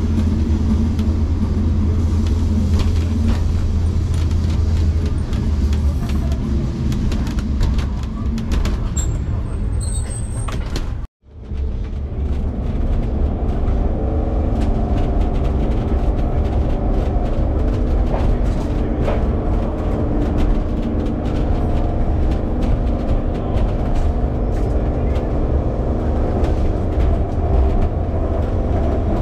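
Lisbon Tram 28 Remodelado streetcar running on its rails, heard from inside the car: a steady low rumble with frequent clicks and rattles from the wheels on the track. The sound cuts out for a moment about eleven seconds in, then the tram rumbles on with a steady hum.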